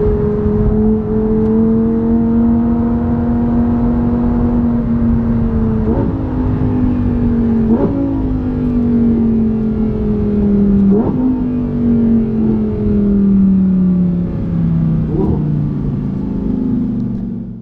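Lamborghini Huracán Tecnica's naturally aspirated V10 heard from inside the cabin as the car slows, its note gradually falling in pitch. Four short rev blips, one with each downshift, punctuate it over steady tyre and road rumble.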